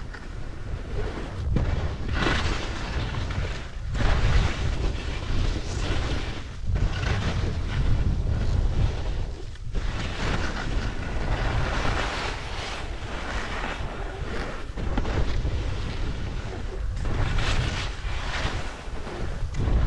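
Wind buffeting the camera microphone in gusts, a rumbling rush that swells and fades every few seconds.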